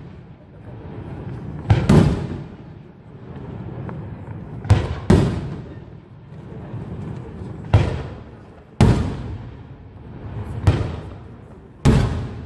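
Aerial firework shells bursting overhead, about eight loud bangs coming mostly in pairs roughly every three seconds. Each bang trails off into a rolling echo, and a low rumble continues between them.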